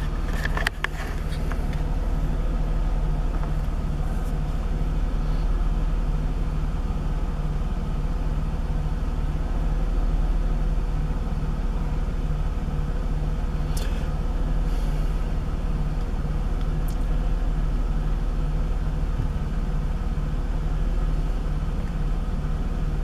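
Jaguar X-Type's 3.0-litre V6 engine running steadily at idle, heard from inside the cabin, with a low, evenly pulsing hum.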